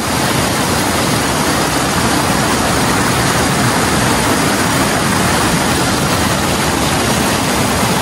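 Loud, steady rush of a waterfall's strong current pouring over the rocks close to the microphone.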